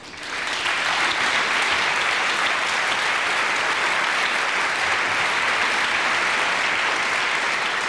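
Large audience applauding steadily, the clapping swelling up within the first half second.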